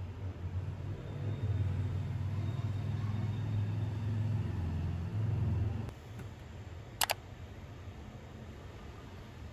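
A low, steady rumble that cuts off about six seconds in, followed a second later by a single sharp click.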